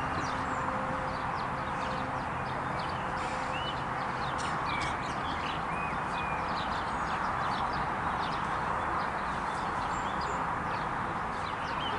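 Small birds chirping repeatedly over a steady, even rushing background noise, with scattered short clicks.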